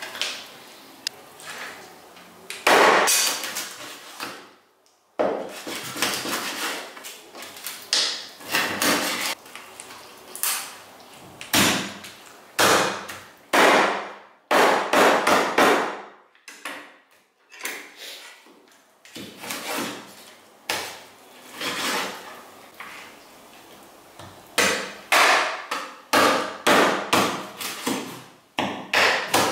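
Knife cutting coot carcasses in half through the bone on a wooden cutting board: a long run of irregular chopping and cracking strokes with short pauses, the blade knocking on the wood.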